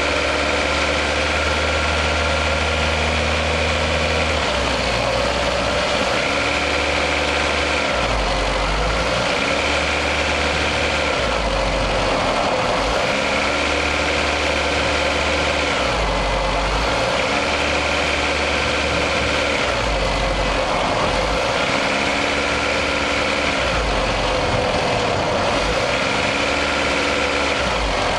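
Toyota RAV4's warm 1AZ-FE 2.0-litre four-cylinder engine pulling under load, heard close up from inside the engine bay, with the characteristic knock that appears under throttle. The engine note changes in a repeating cycle about every three and a half seconds.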